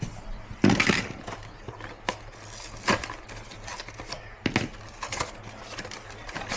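Handling noise from swapping a wall thermostat: a few sharp clicks and knocks of plastic and tools, with rustling in between over a low steady hum.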